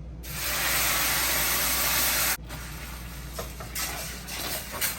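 Coconut milk sizzling loudly as it hits a hot pan, an even hiss that cuts off sharply about two and a half seconds in. It is followed by a quieter sizzle with light clicks and scrapes from stirring.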